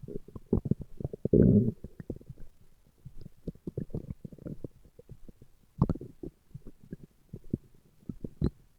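A man's stomach growling: a dense run of rapid, irregular gurgles and pops. The loudest rumble comes about a second and a half in, and sharper single pops come near the six-second mark and near the end.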